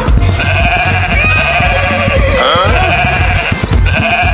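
Goat bleating: several drawn-out bleats, one near the middle with a sweeping change of pitch, over a low thudding underneath.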